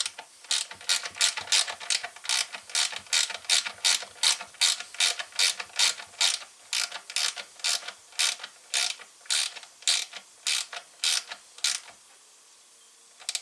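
Hand ratchet wrench clicking in quick, even back-strokes, about two or three a second, tightening a fastener back down on a chainsaw; the strokes stop shortly before the end, with one last click.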